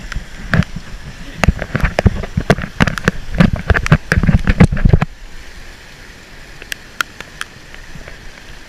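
Rain drops and wet leaves knocking and rustling against an action camera at close range: dense clicks and thumps that thin out about five seconds in to scattered ticks over a faint steady hiss of rain.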